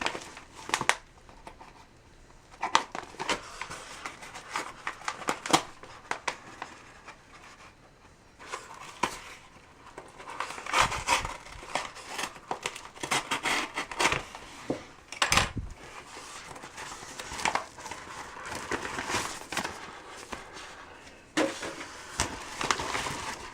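Packaging being cut and pried open with a small utility-key blade: irregular crinkling, cracking and scraping, with a heavier thud about fifteen seconds in.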